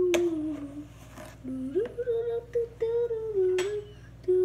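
A person humming a wavering tune, with a sharp knock near the start and another about three and a half seconds in.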